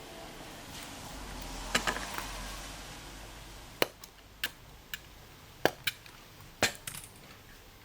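A car passing on a rain-wet road, a hiss with a low rumble that swells and fades over the first half, while a string of about nine sharp clicks sounds irregularly, two close together about two seconds in and the rest spread through the middle.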